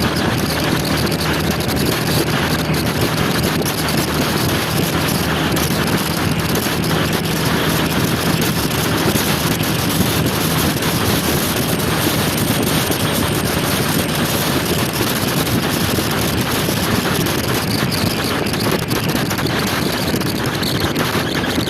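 Steady rush of wind on the microphone over a motor scooter's engine and road noise while riding, with a faint steady engine tone in the first half.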